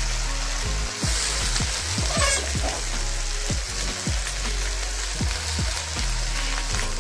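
Chopped colocasia (arbi) leaves sizzling steadily in hot oil in an iron kadhai.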